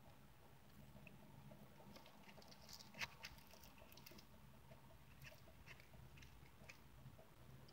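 Faint eating sounds: quiet chewing and a few soft sticky clicks as fingers pick whipped cream and pie from a foil pie tin, one sharper click about three seconds in, over a faint low hum.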